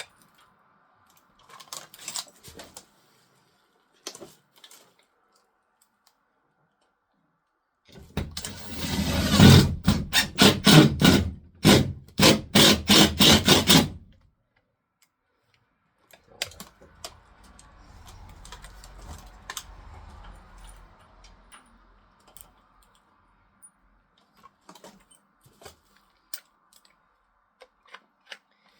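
Tools and hardware being handled while a panel is mounted on a workshop wall: scattered clicks and rattles. In the middle comes a loud run of quick knocks, about three a second, lasting some six seconds.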